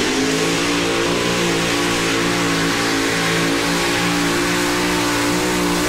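Four Arias Hemi engines of a super modified pulling tractor running at full throttle under load as it drags the sled, holding a steady high engine note.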